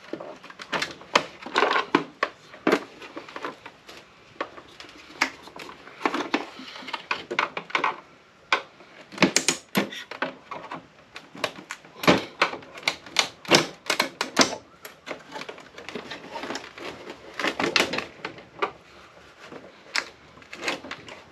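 Irregular clicks, clacks and knocks of an APC battery backup unit's plastic case and battery being worked by hand. The battery is stuck and will not slide out easily. Some of the knocks come in quick clusters, with the loudest between about nine and fifteen seconds in.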